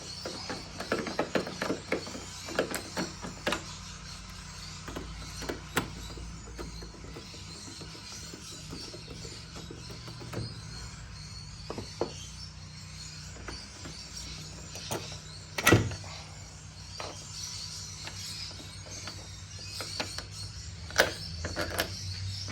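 Clicks and knocks of a Torx T30 driver working out the screws that hold a car headlight: a quick run of clicks in the first few seconds, then scattered clicks and a couple of sharper knocks.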